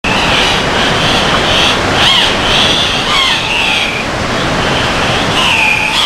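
Steady rushing of river water. Over it, short, high, wavering calls repeat about twice a second.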